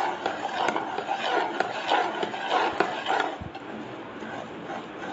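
A metal spoon beating thick besan batter in a metal pot: wet slopping and swishing with a few sharp clicks of the spoon against the pot, easing off after about three seconds.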